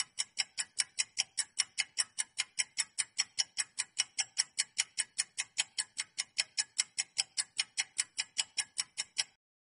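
Clock-ticking sound effect marking a ten-second countdown timer: sharp, even ticks at about five a second, which stop shortly before the end.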